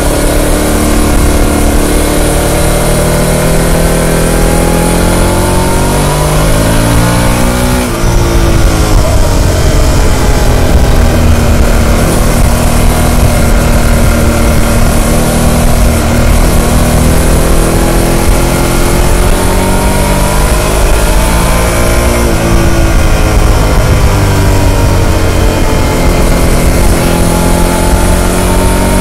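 Harley-Davidson Pan America's liquid-cooled Revolution Max 1250 V-twin on its stock exhaust, heard from the saddle while riding: engine pitch climbs and falls with the throttle, with a short break about eight seconds in as it shifts gear, over a steady hiss of wind.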